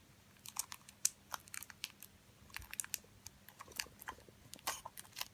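Scattered small clicks and snips of plastic toy pieces being cut off their plastic frame, irregular and faint.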